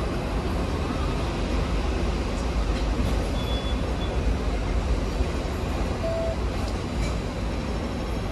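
Hong Kong double-decker VVVF tram travelling along its street track, a steady low rumble mixed with road traffic.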